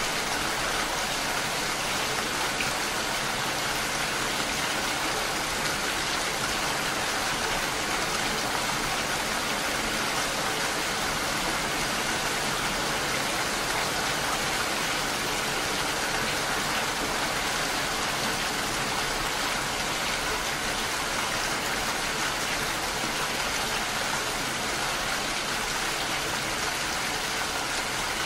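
Steady rainfall: an even, unbroken hiss of rain that neither swells nor fades.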